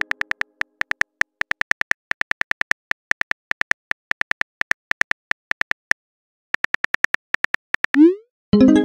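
Phone keyboard typing clicks, several a second, with a short pause about six seconds in. Near the end comes a short rising whoosh, then a pitched chime as the text message is sent.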